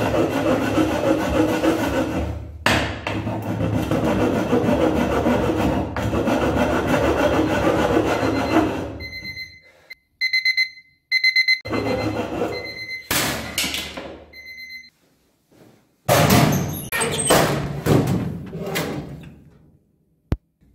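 A handsaw cutting through a thin plywood board for about nine seconds, with one short break. Then a digital alarm clock beeps in short repeated pulses, mixed with a few brief noises. A few seconds of louder clattering follow, with a sharp click near the end.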